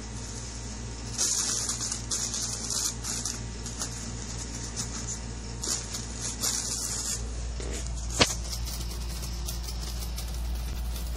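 Fingers scratching and rustling the nylon fabric of a pop-up cat tunnel in short, scratchy bursts, with one sharp click a little after eight seconds and a low hum underneath.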